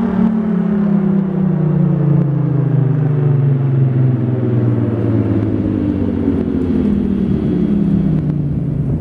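Federal Signal Thunderbolt 1000T outdoor warning siren winding down after its test run, its loud tone falling steadily in pitch and wavering slightly near the end.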